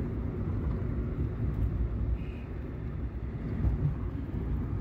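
A car driving along a road: the engine and tyres make a steady low rumble.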